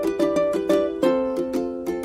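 Background music: a bright, plucked ukulele-style tune with evenly paced notes.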